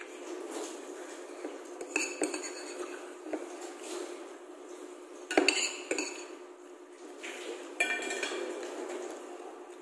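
Metal spoon clinking and scraping against a ceramic plate, in short bursts about two, five and a half and eight seconds in.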